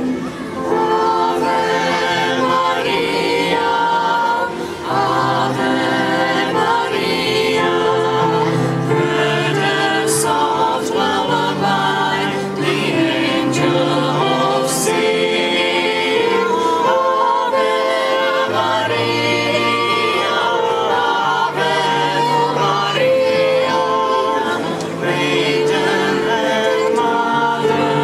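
Small school choir of young singers singing a song in harmony into microphones, amplified through a PA, with held low notes under the voices.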